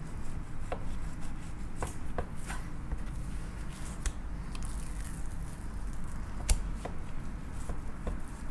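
Long knife working the skin off a raw tuna loin on a wooden cutting board: soft squishing and scraping with scattered light clicks and taps, and a sharper knock about six and a half seconds in, over a steady low hum.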